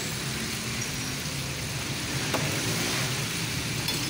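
Hot oil sizzling steadily in a deep fryer as breaded zinger chicken pieces fry in a wire basket, over a low steady hum, with one light knock about two seconds in.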